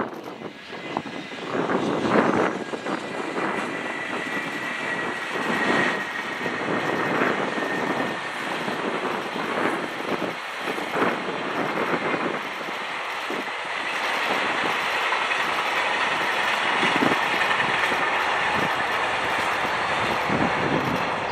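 Freight train hauled by an EH500 electric locomotive passing close by: a steady rumble of wheels on rail with irregular clattering knocks and a thin high whine running through it.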